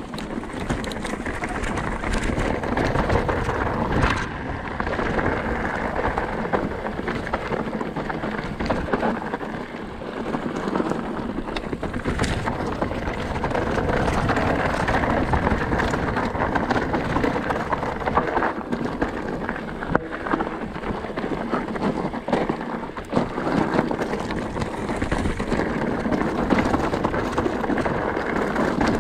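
Mountain bike descending a rocky, gravelly trail: tyres rumbling and crunching over stones and the bike rattling, with frequent sharp knocks, under a steady rushing noise on the body-mounted camera's microphone.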